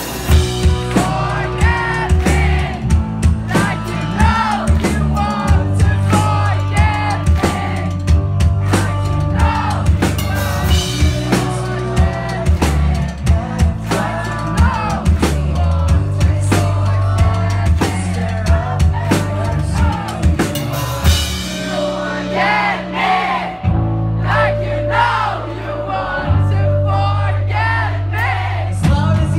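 A rock band playing, with a drum kit keeping a steady beat, a bass line and singing; the bass drops out briefly about three-quarters of the way through.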